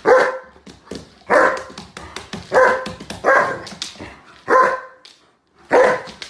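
A large German shepherd barking in play, about six loud barks roughly a second apart.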